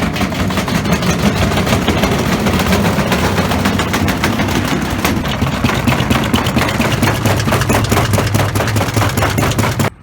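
Washing machine spinning with heavy objects loose in the drum: rapid, continuous banging and clattering over the hum of the motor. It cuts off suddenly at the very end.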